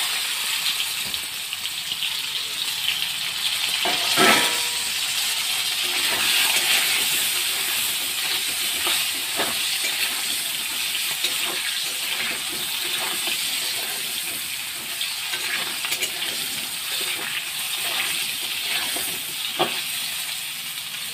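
Potato and pointed gourd pieces sizzling steadily in hot oil in a metal wok, with a few sharp clicks of a metal spatula against the pan as they are stirred.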